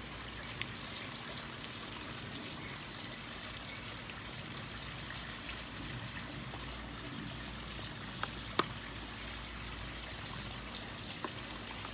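Steady trickle of running water, with a few faint clicks from tape and small plastic boxes being handled.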